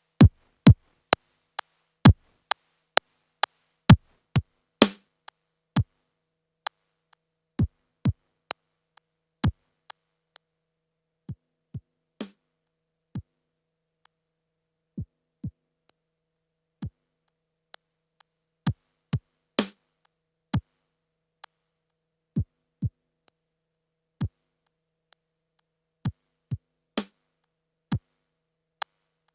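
Yamaha PTX8 drum sounds sequenced and played through an Akai EX70C compressor: separate short electronic drum hits with gaps of silence between, some of them tom-like with a pitch that drops.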